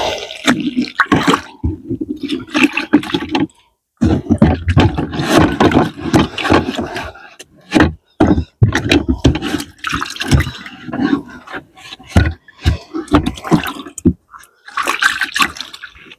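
A bait bucket being rinsed out in lake water: water sloshing, splashing and pouring in irregular bouts, with a couple of short pauses.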